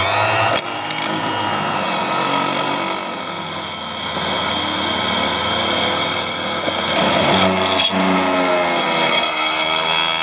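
Bench drill press running as its twist bit drills a hole into a duralumin adapter, a steady machine sound with a brief dip about eight seconds in.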